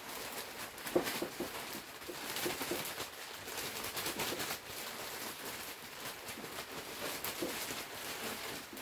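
Bagged soil being poured out of a plastic sack into a raised bed: the sack rustles and crinkles and the soil patters and hisses as it falls, with uneven clicks and knocks as the bag is shaken.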